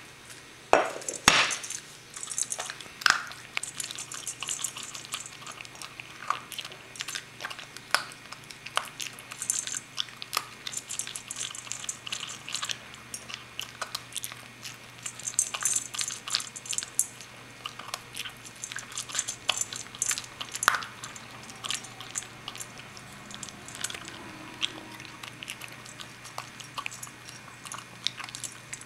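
Toy poodle eating dry kibble from a bowl: quick irregular crunching and chewing, with small clicks of kibble and teeth against the bowl. A couple of louder knocks about a second in as the bowl is set down on the floor.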